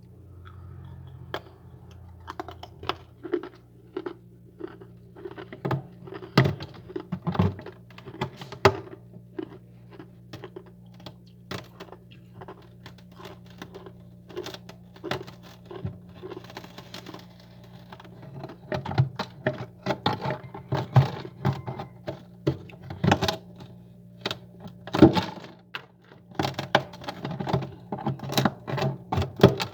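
Freezer frost and ice crunching: irregular sharp crackles and knocks, several a second, over a steady low hum.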